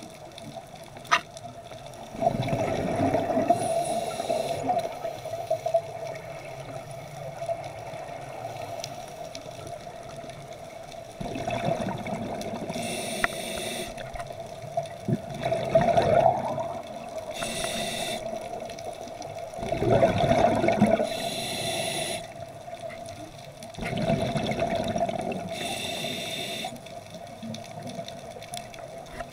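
Scuba diver breathing through a regulator underwater: gushing bursts of exhaled bubbles every four to five seconds, each followed by a short hiss of the next breath, over a steady hum.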